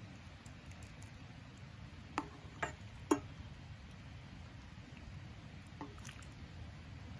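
A utensil taps against a stainless steel cup three times in quick succession as noodles are served into it, then once or twice more, fainter, as broth is ladled in. Under it runs a low steady background rumble.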